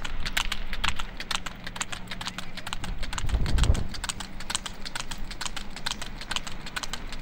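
Water buffalo's hooves clip-clopping on a paved road as it trots pulling a cart, a quick run of sharp clicks several a second. A low rumble swells briefly about three seconds in.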